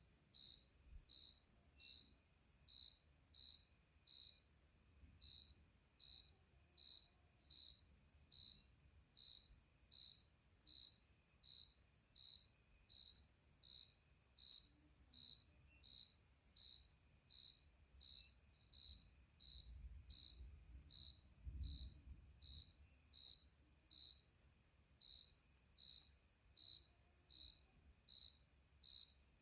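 A cricket chirping steadily, one short high chirp a little more than once a second, evenly spaced. A faint low rumble comes in about twenty seconds in.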